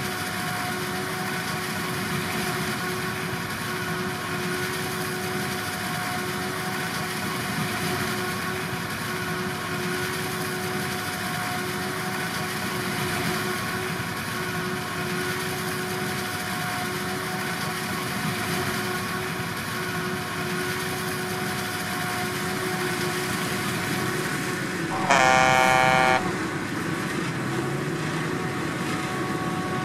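Corn silage harvesting machinery running with a steady drone and whine. About 25 seconds in, a vehicle horn sounds once for about a second.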